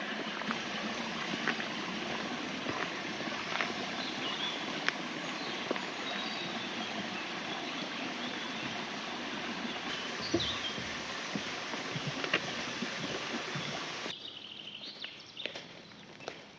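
Outdoor ambience: a steady rushing noise, with a few faint bird chirps and scattered clicks. It drops away suddenly near the end.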